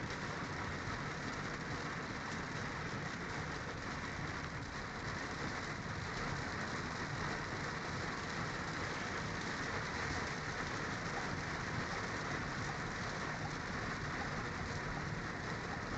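Heavy rain falling steadily on a moving car's roof and windshield, heard from inside the cabin, mixed with the hiss of tyres on the flooded road.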